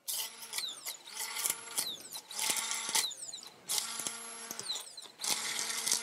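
Stick blender run in five short bursts of about a second each, the pitch falling away as the motor stops after each one, blending a soy-milk base for vegan mayonnaise.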